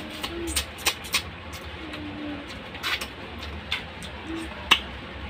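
Wet mouth clicks and lip smacks from eating with the fingers, the sharpest one a little before the end, over a low steady hum. A dove coos softly in the background, a few short low coos.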